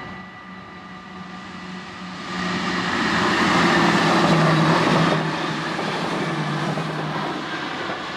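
NS Sprinter (SGM) electric multiple unit passing close at speed: the rush of the train and its wheels on the rails builds about two seconds in, is loudest for a couple of seconds, then eases as it moves away. A level-crossing bell rings steadily throughout.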